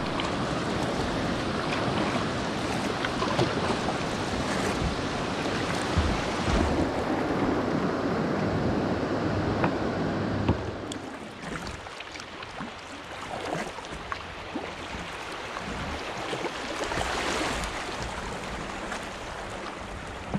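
Steady rush of water, loud for about ten seconds, then dropping to quieter river water with scattered small knocks and splashes.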